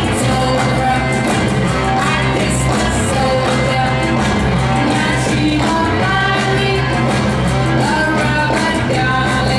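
Upbeat jive music with a singer and a steady beat, played for the dancers over the hall's sound system.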